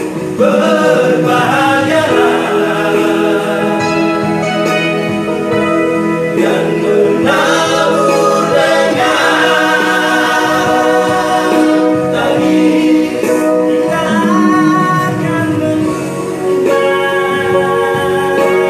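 Male vocal group of six singing a song together, several voices at once.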